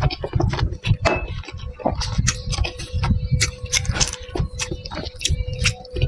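Close-miked chewing of a soup dumpling: soft wet squelches and irregular mouth clicks, several a second.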